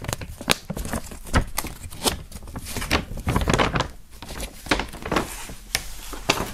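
A glossy paper poster, folded very small, being unfolded by hand: paper rustling, with many irregular crackles and sharp clicks as the fold lines open.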